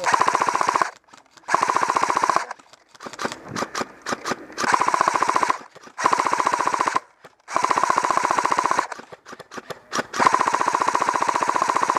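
Electric airsoft guns firing full-auto bursts close by: about six bursts of roughly a second each, each a very fast, even rattle of shots over the whine of the gun's motor and gearbox, with scattered lighter shots between them.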